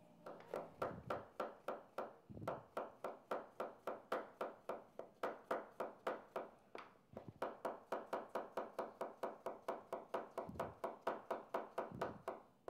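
Knife chopping quickly and evenly on a cutting board, about four strokes a second, each a sharp knock with a short woody ring. The run pauses briefly twice.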